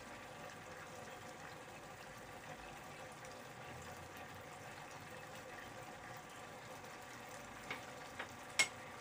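Sauce with tofu and fish simmering in a frying pan, a faint steady bubbling. Near the end come three light knocks, the last the sharpest, as a wooden spatula strikes the pan.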